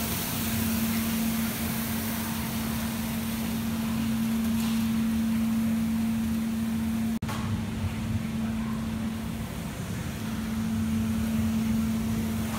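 Walk-behind auto floor scrubber running: a steady motor hum with one constant low tone and a rushing hiss, with a brief drop about seven seconds in.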